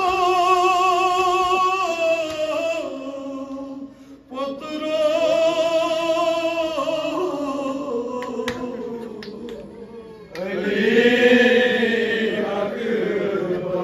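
A man's voice chanting a nauha, a Shia lament, unaccompanied through a microphone, in long wavering held notes with short pauses between phrases. The loudest phrase begins about ten seconds in.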